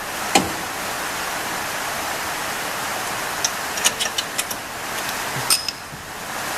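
Metal tools and suspension parts clicking and clinking: one sharp click about half a second in and a quick run of small clinks around four seconds in, over a steady hiss.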